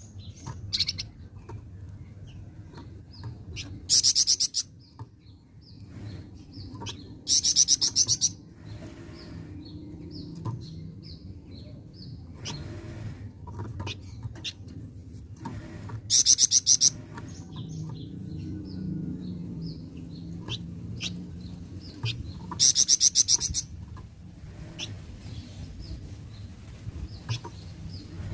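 A flamboyan songbird singing: scattered short high chirps broken four times by a loud, very fast trill, each lasting under a second. A low steady hum runs underneath.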